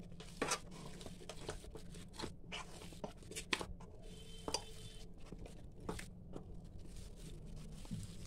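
A hand kneading warm mashed boiled potato in a steel bowl: faint, irregular squishing and soft clicks as the dough is pressed and worked until it turns sticky.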